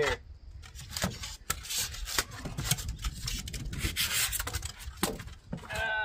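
Styrofoam packing blocks being pulled out of a cardboard shipping box: foam rubbing and squeaking against cardboard, with scattered short knocks and scrapes.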